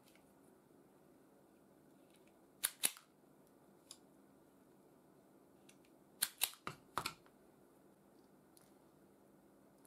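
Self-adjusting wire stripper clamping and snapping back as it strips insulation from the end of a power-cable lead. It gives sharp clicks: a pair a little under 3 s in, and a quicker run of four or five about 6 to 7 s in.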